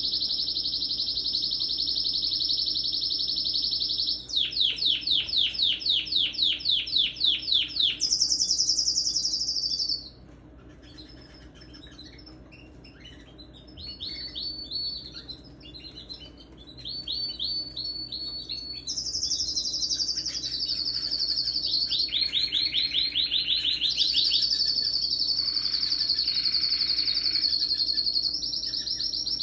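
Domestic canary singing powerfully: long rolling trills and runs of fast repeated notes, high-pitched. About a third of the way in it drops to softer, broken notes for a few seconds, then the full song resumes.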